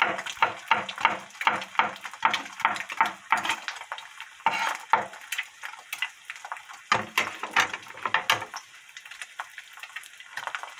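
An egg frying in oil in a nonstick pan, crackling and popping with many quick spatters. The crackling is thickest over the first few seconds and comes again in bursts about four and a half and seven seconds in.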